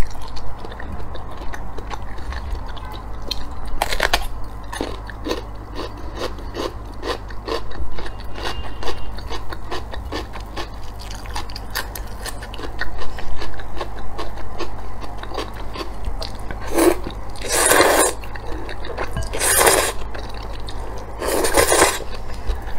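Close-up eating sounds: crunchy bites and wet chewing of a pickled cucumber. In the last third come four long, loud slurps of noodles.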